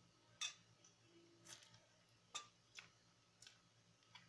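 Eating sounds: about half a dozen faint, sharp clicks and taps from fingers and cutlery on a ceramic plate and from chewing, the first, about half a second in, the loudest.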